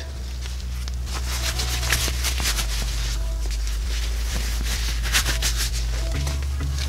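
Light clinks and knocks of a wheel and parts being handled against a steel-tube mini bike frame, over a steady low hum that shifts in pitch a few times.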